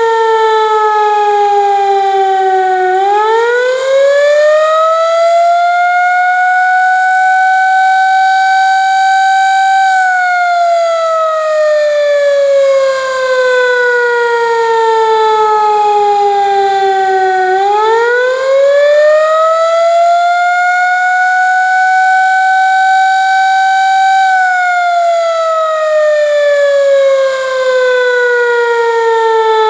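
Air raid siren sounding a slow wail: the pitch climbs quickly to a high steady note, holds for several seconds, then sinks slowly to a low one, in two full cycles.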